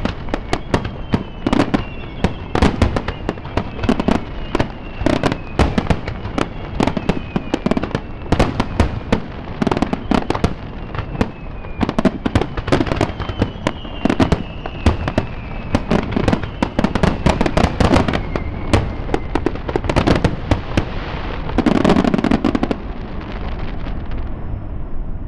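Aerial fireworks display: a dense, continuous barrage of bangs and crackle, with several falling whistles. A louder, longer burst comes about 22 seconds in, and the barrage dies down near the end.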